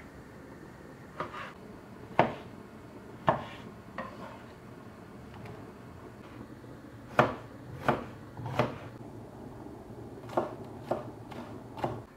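Cleaver chopping vegetables on a wooden cutting board: about a dozen sharp knocks of the blade meeting the board, at uneven intervals with pauses between bursts.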